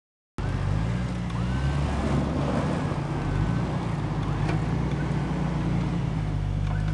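Off-road vehicle engine running under load during a recovery pull, its pitch shifting down and back up a couple of times as the throttle changes.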